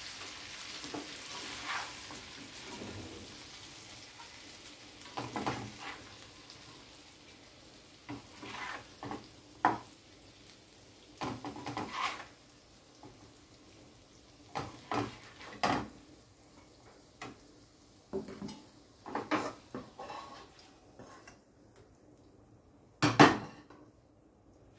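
Metal spatula scraping and clinking against a kadhai and a steel serving bowl as cooked stuffed-eggplant and potato curry is dished out, over a light sizzle that dies away in the first few seconds. A loud clunk comes near the end.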